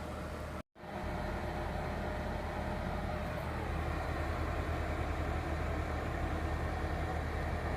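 Vevor electric melting furnace running with its cooling fans: a steady whirring hum with a low drone. The sound drops out completely for an instant under a second in, then carries on and grows slightly louder.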